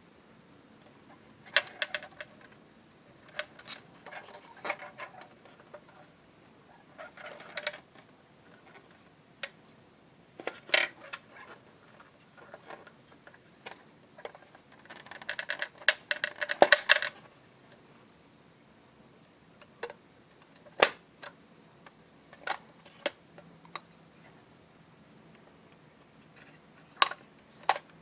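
Hard plastic miniature toy kitchen being handled: scattered clicks and taps as its small parts and cabinet doors are worked, with a short burst of rapid rattling clicks a little past halfway.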